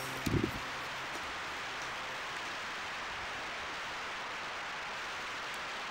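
Steady rushing hiss of airflow over the onboard camera of a foam delta RC plane climbing just after a hand launch, with a brief low thump near the start.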